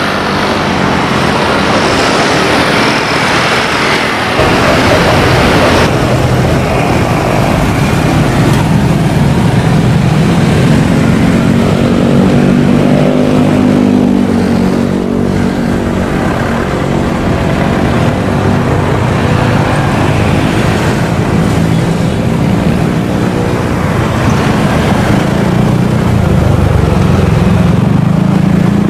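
Light single-engine aircraft's piston engine and propeller droning, its pitch rising and falling slightly as it flies past, with a louder rushing noise in the first few seconds.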